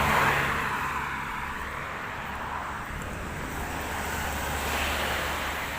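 Street traffic noise: passing vehicles, with a steady rush that swells just after the start and again about five seconds in.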